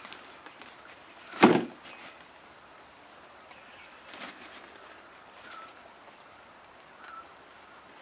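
Yellow bamboo poles being lashed together with coir rope: one sharp knock of bamboo about one and a half seconds in, a softer knock a few seconds later, and light rope and handling rustle between them.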